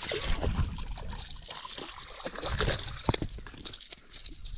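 Water trickling and sloshing, with a few soft knocks scattered through.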